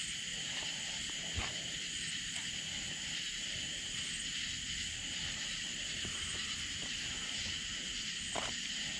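A steady, unbroken chorus of night insects, crickets and similar, with a couple of faint knocks.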